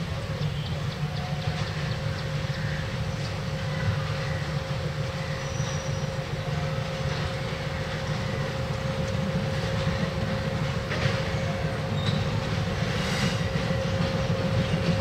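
Bangladesh Railway diesel locomotive hauling bogie oil tank wagons at low speed. The engine gives a steady low rumble with a constant hum over it, with occasional wheel clicks, and grows slightly louder as it approaches.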